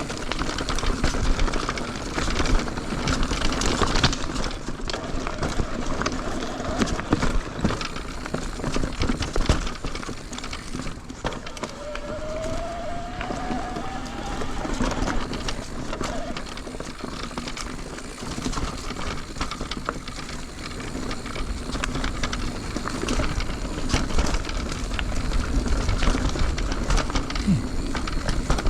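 Mountain bike ridden along a dirt and rock trail at speed: tyres rolling over the ground, frequent rattles and knocks from the bike, and wind rumble on the microphone. A short rising squeal about twelve seconds in.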